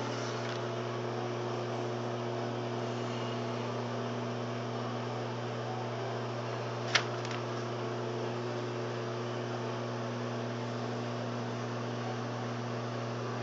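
LG microwave oven running while heating a frozen meal: a steady low electrical hum, with one sharp click about seven seconds in.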